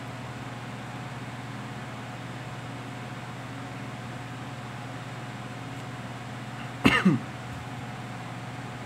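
A person coughs once, a short double cough with a falling pitch, about seven seconds in, over a steady low hum.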